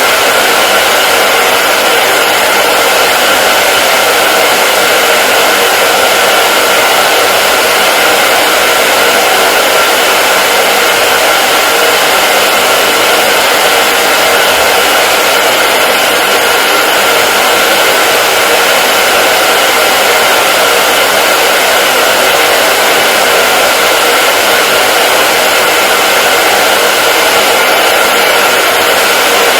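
Hair dryer running continuously, a steady loud rushing whoosh of blown air with a faint whine, unchanging throughout.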